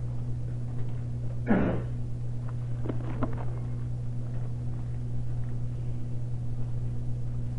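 A steady low hum through a pause in the talk, with a few faint small noises and one brief louder noise about one and a half seconds in.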